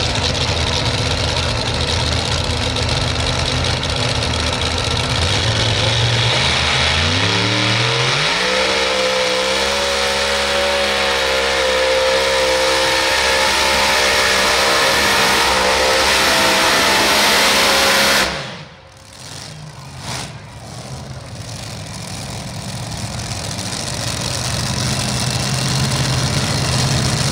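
The engines of a multi-engine modified pulling tractor idle at the line, then rev up in a rising climb and run flat out under load for about ten seconds. The sound drops off sharply about two-thirds of the way through, then engine noise builds back gradually.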